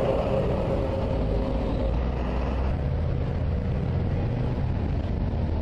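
Steady low rumbling drone, one of the 'strange sounds from the sky' recorded on a phone, with no explanation of its source; a fainter steady hum fades out about a second in.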